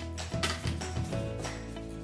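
Background music: held notes over a steady bass line, with a few light percussive hits about half a second in.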